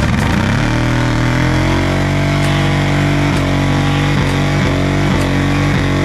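Motorcycle engine revving up over the first couple of seconds and then held at steady high revs, dipping briefly several times in the second half.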